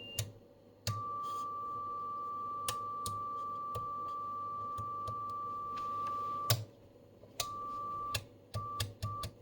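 Steady electronic test tone from the Storno TS-G13 audio test set's oscillator, switched on about a second in and held for several seconds before cutting off, then coming back as a few short beeps near the end. Sharp clicks are heard throughout, the loudest at the moment the long tone stops.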